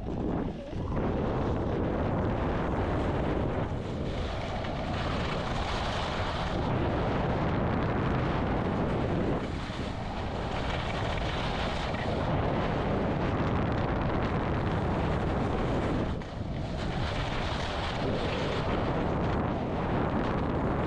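Wind rushing over the microphone of a body-mounted camera as a skier runs downhill, mixed with the hiss and scrape of skis over groomed snow. The noise is steady and eases briefly every few seconds, with the turns.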